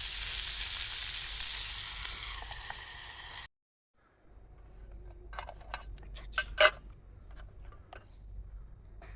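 Food sizzling and frying in a pan, a steady hiss that softens slightly and then stops abruptly about three and a half seconds in. After a brief silence come a few scattered light clicks and knocks, one louder click near the middle.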